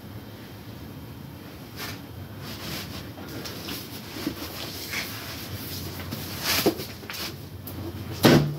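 Scattered knocks and rustling of someone moving about a room, with a louder thump near the end.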